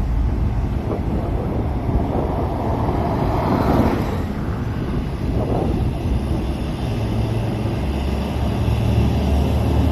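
Wind rumbling on the microphone over a motor vehicle's engine. The engine grows steadier and louder in the last few seconds.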